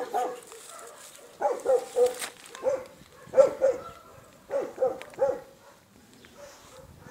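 Dog barking: short, pitched barks in several quick bursts of two or three, with gaps in between.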